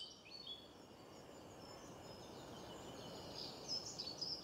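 Faint outdoor ambience: small birds chirping over a low, even background noise that swells slightly in the middle.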